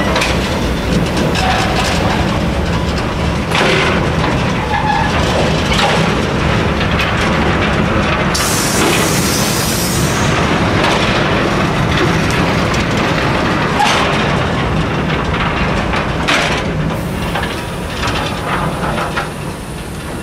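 Cement tank wagons of a freight train rolling slowly past close by, with a steady rumble and scattered knocks and clanks from wheels and couplings. A brief hiss comes about eight seconds in, and the sound eases off near the end.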